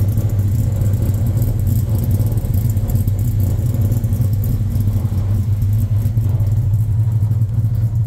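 Ford Coyote 5.0 V8 idling through long-tube headers, a 3-inch X-pipe and Magnaflow mufflers, heard from the exhaust. The idle has a steady, low, fast flutter, the lope of a ghost cam tune.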